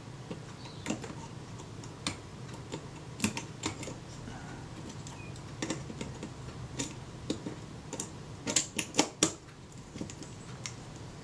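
Light metal clicks and taps as the top cover of a Kodak Retina IIIc is eased down and seated onto the camera body, with a quick run of sharper clicks near the end.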